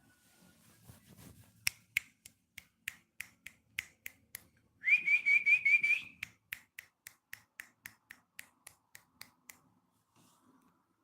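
A person making a rapid series of clicking sounds, about three a second, with a short warbling whistle in the middle, as if calling a cat.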